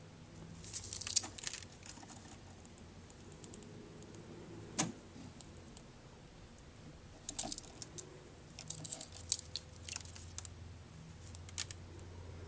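Budgerigar bathing in shallow water: several short bursts of quick splashes and flutters a few seconds apart, with one sharp knock about five seconds in.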